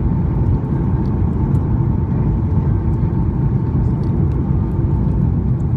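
Cabin noise inside a Southwest Airlines Boeing 737 on final approach with flaps extended: a steady, loud rumble of engines and airflow with a faint steady whine.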